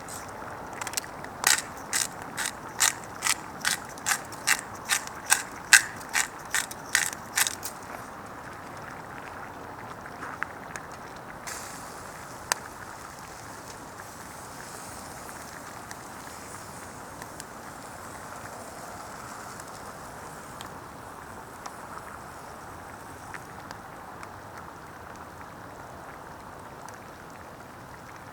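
A run of quick, evenly spaced ratcheting clicks, about three a second for some six seconds, then a steady hiss with an occasional single click.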